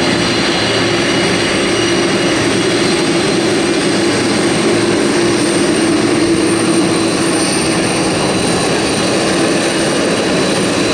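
Aircraft engine running steadily: a continuous roar with a steady low hum and a thin high whine.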